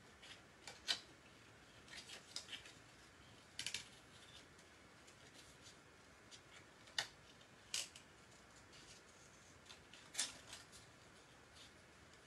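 Scissors cutting paper in short, scattered snips, with a handful of sharper snips a few seconds apart.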